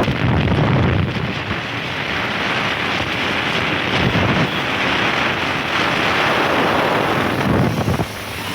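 Wind buffeting the microphone on a moving scooter, a loud gusting rush with the ride's engine and road noise under it. It eases near the end.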